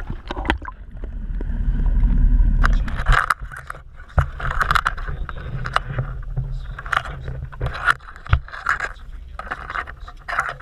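Scraping and clicking from crabs being handled in a wire crab pot on a boat deck, with a loud low rumble about one to three seconds in.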